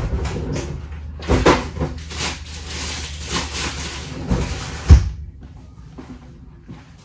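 A freezer door opened and shut while packets of frozen food are put away, with several knocks and a sharp thump about five seconds in.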